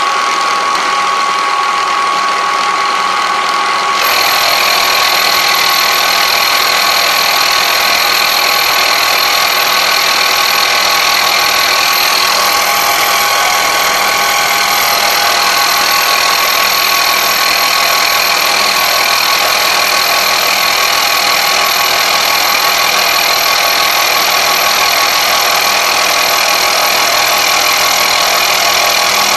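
Milling machine cutting cast iron with an indexable-insert end mill at a 4 mm depth of cut: a steady, loud machining noise with a high whining tone, growing louder and fuller about four seconds in.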